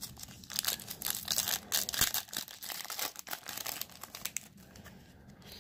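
Foil wrapper of a Panini Threads basketball card pack crinkling and tearing as it is pulled open by hand: a rapid run of crackles that thins out about a second before the end.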